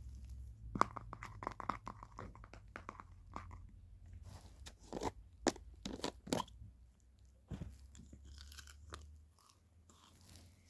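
Slime being squeezed and poked by hand, giving off crunchy crackles and pops in clusters, first about a second in and again from about four to six and a half seconds in.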